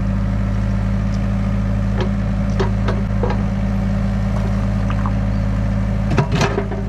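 Mini excavator's diesel engine running steadily as the bucket and hydraulic thumb pinch a single small rock from a stone pile. A few sharp clacks of stone on steel come about two to three seconds in, and a louder clatter of knocking rocks comes near the end.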